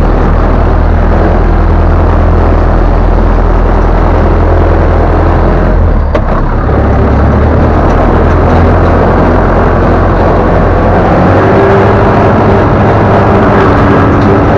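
Ursus C-360 tractor's four-cylinder diesel engine running loud as the tractor drives, heard from inside the cab. The engine note dips about halfway through and shifts again in the last few seconds.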